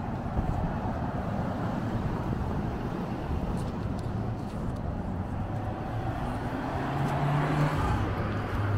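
City street traffic: a steady rumble of passing cars, with one vehicle's engine hum swelling and getting louder about two seconds before the end.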